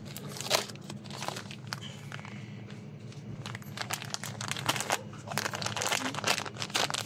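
Plastic sachets of washing powder crinkling and rustling as they are handled, in irregular crackly bursts that grow busier in the last few seconds.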